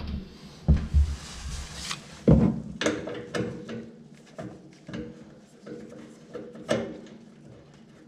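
Irregular knocks and clicks, with several heavy thumps in the first three seconds and a sharp knock near the end, over a faint steady hum.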